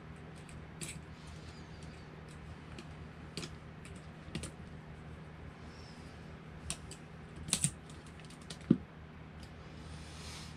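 Small clicks and taps of metal hex drivers and small plastic and metal RC car parts being handled on a workbench mat, with a louder knock about three-quarters of the way through and a brief rustle near the end.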